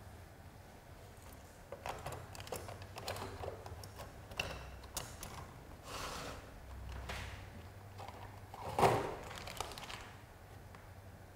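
Quiet scattered clicks and rustles of things being handled, with one louder swish about nine seconds in.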